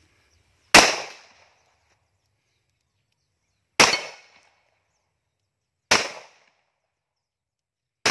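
Four single shots from a .45-calibre 1911 pistol, fired slowly one at a time. The gaps are about three seconds, then two, then two. Each shot is a sharp crack with a brief fading echo, and the last comes right at the end.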